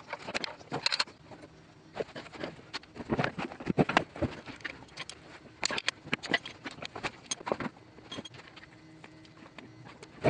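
A wrench clicking and metal tools clinking on the oil-pan and transmission drain plugs of a Mitsubishi 4G63 AWD drivetrain, in quick irregular bursts. After about eight seconds it goes quieter, as a thin stream of gear oil runs into the drain pan.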